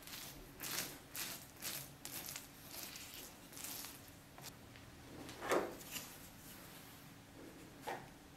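Silicone spatula spreading a grated parmesan, olive and dried-tomato filling over flattened bread dough, in repeated soft scraping strokes about two a second. A louder short sound comes about five and a half seconds in.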